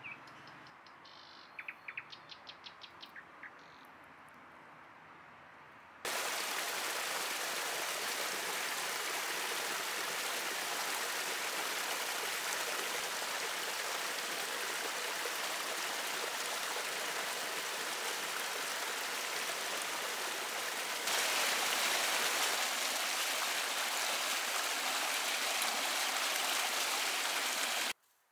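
Small forest stream splashing over a low cascade: a steady rush of water that starts abruptly a few seconds in and gets a little louder near the end. Before it, quieter woodland with a quick run of short bird chirps.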